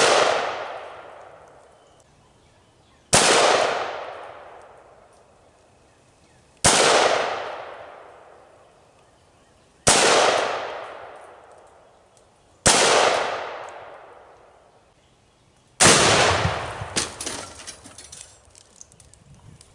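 Rifle shots from an AR-style rifle, one about every three seconds, each trailing off in a long echo. About sixteen seconds in a Tannerite charge detonates with a bigger, deeper blast, followed by scattered crackling and clatter as debris comes down and the lawnmower is thrown over.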